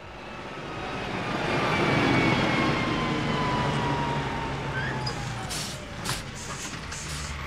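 Cement mixer truck's engine rising in loudness as the truck approaches and pulls up, with a falling squeal as it slows, then a few short hisses near the end.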